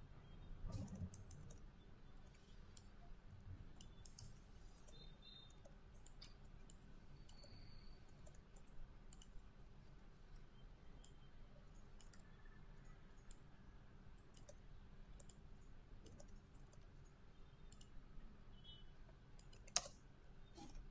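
Sparse computer mouse clicks, irregularly spaced and faint, over a low steady room hum, with one louder click near the end.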